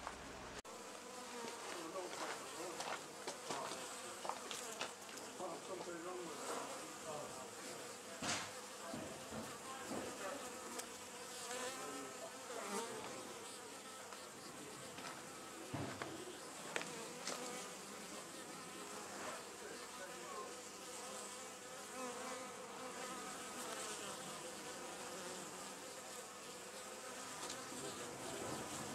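Honey bees buzzing at the entrance of a wild colony's nest in an old wooden box, a steady hum of many wings with brief louder buzzes now and then.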